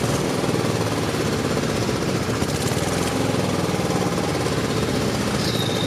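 Outboard motor of a small passenger boat running steadily at a low, even speed, with a fast regular chugging.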